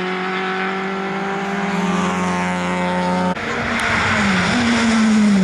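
Rally car engine holding a steady note as the car drives away. About three seconds in the sound cuts abruptly to another rally car whose engine note dips and rises as it takes a corner.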